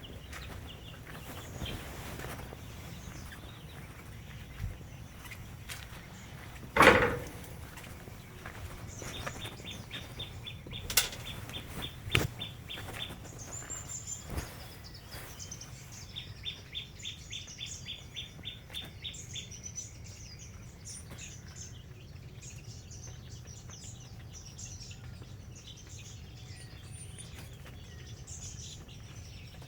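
Birds chirping with rapid trills over a steady low background, broken by a loud knock about seven seconds in and two sharp clicks a few seconds later.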